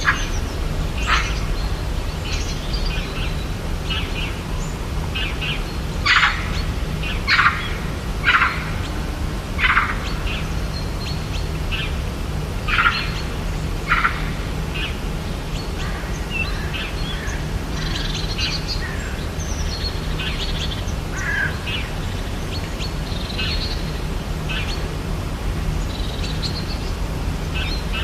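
Rainforest birds chirping and calling, many short calls overlapping, over a steady low background hum. A run of louder sharp calls, about one a second, stands out in the middle.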